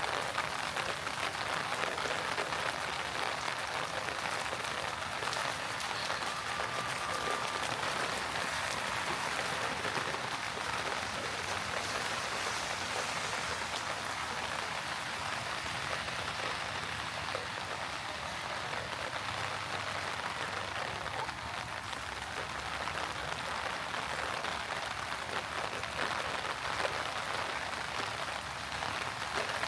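Heavy rain falling on city pavement, a steady hiss.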